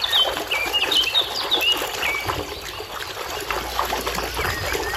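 Water splashing and sloshing in a plastic tub as a toy elephant is scrubbed by hand under the water. Birds chirp in the background, most busily in the first two seconds.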